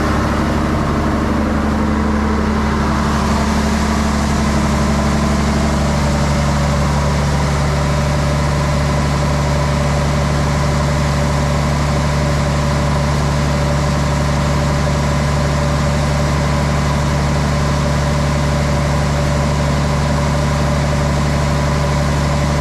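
Truck engine running steadily, a constant low drone with no change in speed; a higher tone in it fades out about three seconds in.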